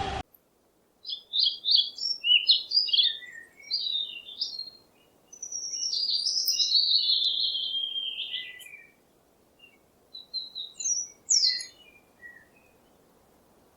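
A small bird singing: three runs of quick, high chirping notes with short pauses between them, the middle run longer and sliding down in pitch.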